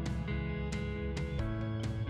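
Background music led by guitar, with a stroke about every half second and a chord change about two-thirds of the way through.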